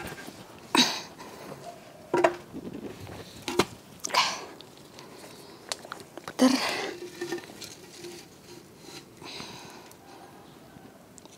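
A handful of short rustles and light clicks from something being handled, spaced a second or two apart, the loudest about a second in and again about six and a half seconds in.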